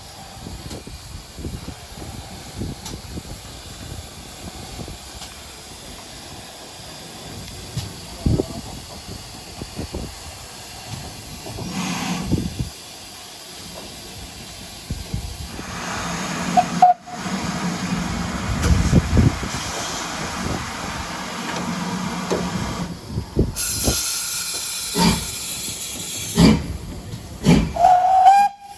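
Steam locomotive hissing in repeated bursts of escaping steam, loudest in the second half, with a couple of brief high squeaks.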